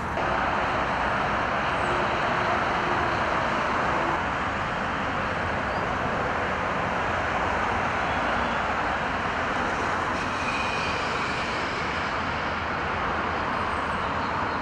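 Constant drone of road traffic from a dual carriageway, a steady even hum without breaks.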